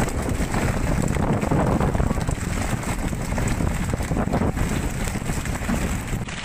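Wind buffeting the microphone: a steady, rough noise, heaviest in the deep range.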